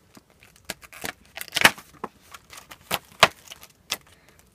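Hands unpacking a phone armband from its plastic wrapping: irregular crinkles, clicks and taps, with two louder rustles about a second and a half and three seconds in.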